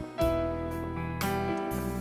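Background music: gentle, tender instrumental with piano and plucked notes, new notes starting every half second or so.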